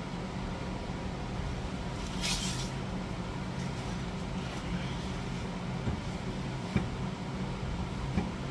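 Steady low hum of a garage, with a brief hiss about two seconds in and two sharp clicks or knocks near the end.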